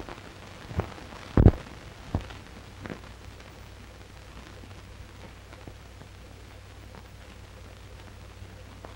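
Footsteps: four steps at an even walking pace in the first three seconds, the second one the loudest, then only the steady hiss and low hum of an old film soundtrack.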